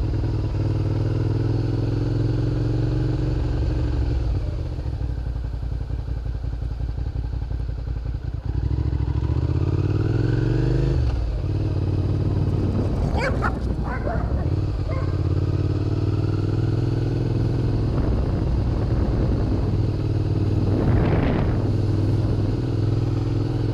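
Suzuki SV650's V-twin engine running under way, heard from the rider's seat. A little before halfway the revs climb steadily for a couple of seconds as it accelerates, then drop back. A few brief sharp sounds come a little past halfway.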